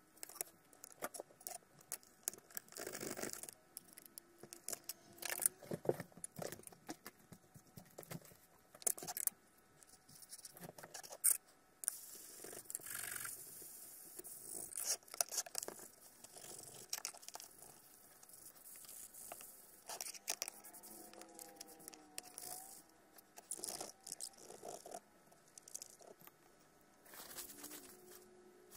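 Hands handling a plastic calculator and scrubbing its back with the rough side of a soapy sponge: irregular scratching, rubbing and small clicks, with paper-towel wiping near the end.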